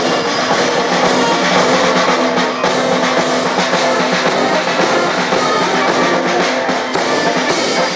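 Brass band playing: trombones and tuba over a steady drum beat.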